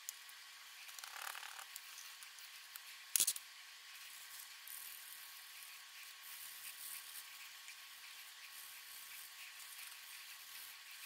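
Faint handling and scratching noises over a steady hiss, with one sharp click about three seconds in.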